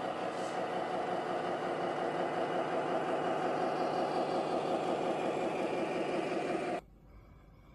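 Scale RC truck running with a steady, finely pulsing engine-like drone, which cuts off suddenly about seven seconds in.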